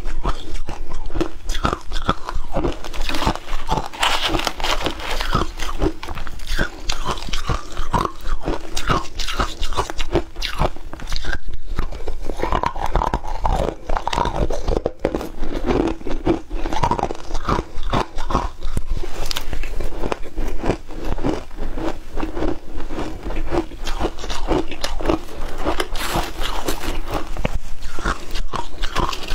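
Crunching and chewing of frozen ice in the mouth, close to a clip-on microphone: dense, irregular crackling crunches that keep up without a pause.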